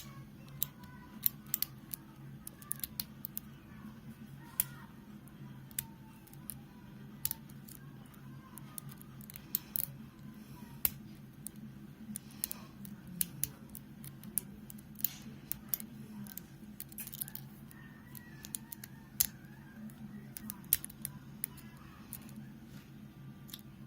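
Irregular small metallic clicks of a hook pick and tension wrench working the pin stack of a Stanley Kwikset 40 mm padlock held in a false set, as spool pins are set, over a faint steady hum.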